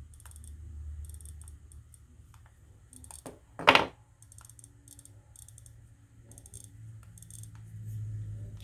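iPod Nano 2nd generation click-wheel clicker ticking in short quick runs as the wheel is scrolled through the menus, a sign that the reconnected click wheel responds. About three and a half seconds in comes a single loud clatter of metal tweezers set down on the table.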